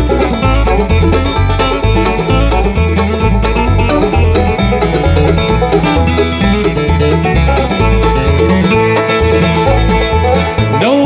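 Live bluegrass band playing an instrumental break, with fast banjo picking and guitar over a steady bass line.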